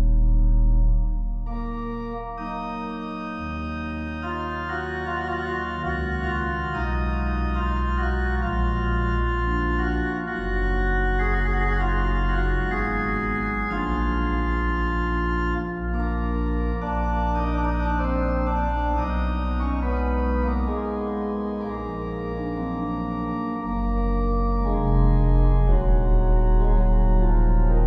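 Organ music: slow, held chords over deep bass notes, the chord changing every few seconds.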